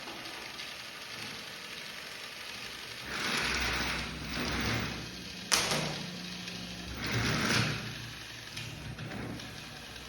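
Running noise of a moving train coach: a steady rushing hiss that swells louder twice, with a single sharp knock about five and a half seconds in.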